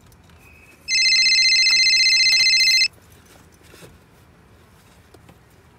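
Mobile phone ringing: one loud electronic trilling ring, about two seconds long, starting about a second in.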